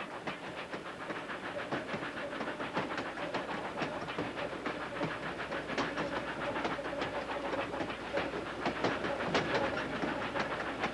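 Narrow-gauge Baldwin ten-wheeler steam locomotive working upgrade, a quick, even beat of exhaust and running gear with rail clatter.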